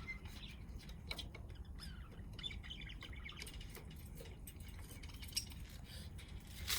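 Pet parakeets chirping faintly, with short scattered chirps and little tweets.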